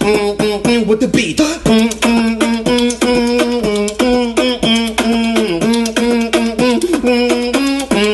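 Beatboxing: a held hummed note with its pitch shifting now and then, layered with quick mouth-made percussive clicks and hits in a fast rhythm.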